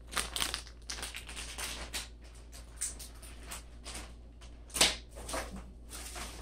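Plastic packaging bag crinkling and rustling in the hands: irregular crackles, with one louder crackle about five seconds in, over a low steady hum.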